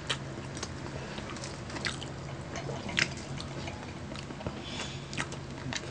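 Close-miked eating sounds: chewing with scattered small, wet mouth clicks and lip smacks, the strongest about three seconds in, over a faint steady hum.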